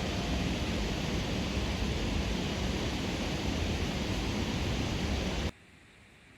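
Steady hiss from a public-address loudspeaker of a municipal disaster-warning radio system, left open after its chime melody has ended. The hiss cuts off suddenly about five and a half seconds in as the loudspeaker switches off.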